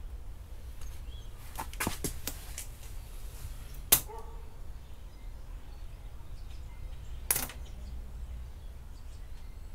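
Sharp snaps and crackles of vinyl pinstripe tape being pulled, lifted and pressed along a car's painted body: a small cluster about two seconds in, the loudest snap about four seconds in and another about seven seconds in, over a low steady rumble.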